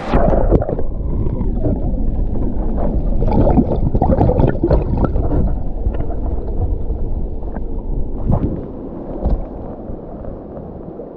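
River water churning and splashing close to the microphone, with a heavy low rumble and irregular sloshes, loudest through the first half and easing off near the end.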